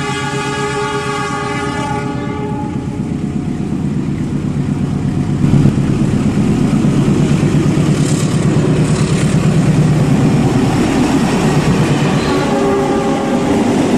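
A locomotive horn sounds for about the first three seconds. Then a train runs loud and steady, with a heavy rumble and rapid wheel clatter on the rails that grows louder about five seconds in.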